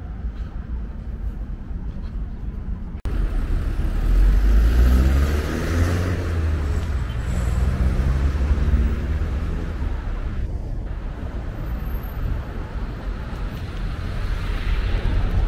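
Street traffic: steady road noise, with a motor vehicle's engine passing close from about four to nine seconds in.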